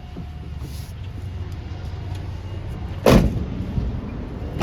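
Low, steady rumble of a work vehicle running, with two heavy thumps about a second and a half apart near the end, like doors or gear being shut or set down.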